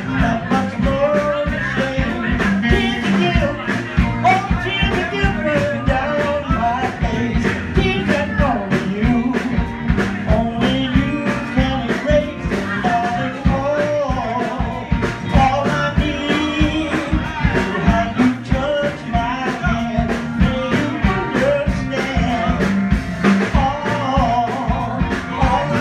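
A live rock and roll band playing: a man singing into a handheld microphone over electric guitars and a steady drum beat.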